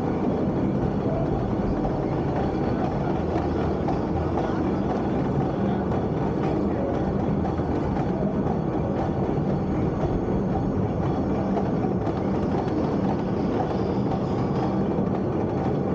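Steady mechanical rumble and clatter of a river-rapids ride's lift conveyor carrying a round raft boat up a long incline.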